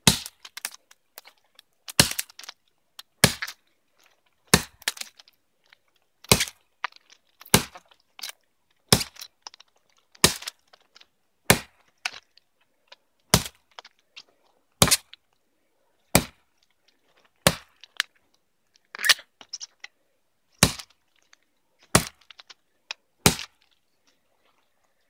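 Pack axe made from a hatchet head on a 19.5-inch handle chopping into the trunk of a standing alder, about one sharp chop every second and a half. The blows are cutting the face notch of a felling cut.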